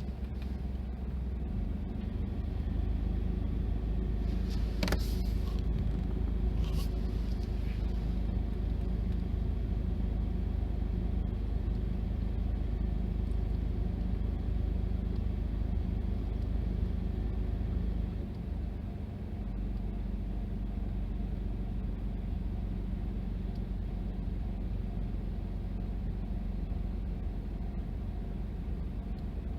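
Steady low rumble of a running vehicle, with two brief sharp clicks about five and seven seconds in.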